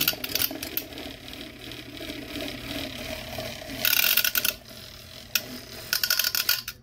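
Handheld battery milk frother's small motor running on low with its balloon whisk head whipping egg whites in a plastic cup, a steady hum with loud bursts of clatter about four and six seconds in as the whisk knocks about the cup. It lacks the power to whip a thick meringue, only thickening the whites a little, and cuts off at the very end.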